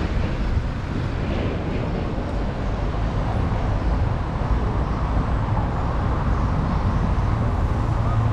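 Steady low rumble of a moving vehicle, with no distinct events.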